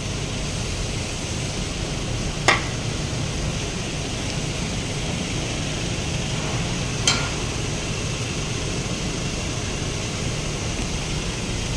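Steady workshop background hiss, broken by two short sharp sounds, one about two and a half seconds in and another about seven seconds in.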